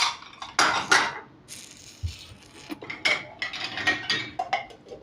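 Kitchen clatter: dishes and glassware knocking and clinking as they are handled, a string of irregular sharp knocks, some ringing briefly.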